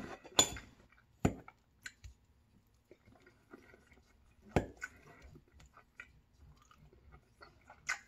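A person chewing a mouthful of food close to the microphone: soft wet mouth noises. A few sharp clicks of a metal fork against the plate come through, the last near the end.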